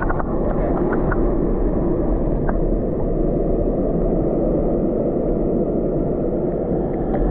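Flowing river water heard through a submerged camera: a steady, muffled rumble with a few faint clicks and ticks.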